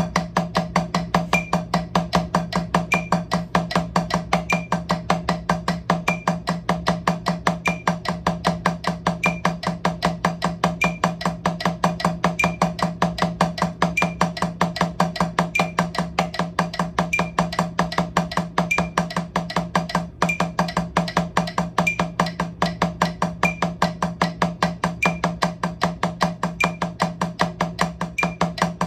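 Wooden drumsticks playing fast, even strokes on a drum practice pad at 152 BPM in stick-control practice, with a higher click about every one and a half seconds.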